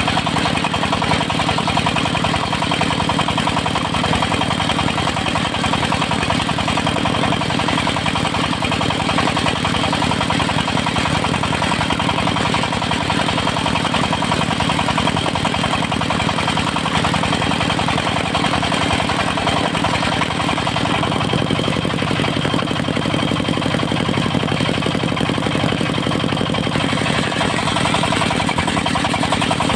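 Engine of a portable circular-saw mill running steadily under the sawing of teak planks, with a slight shift in its sound about two-thirds of the way through.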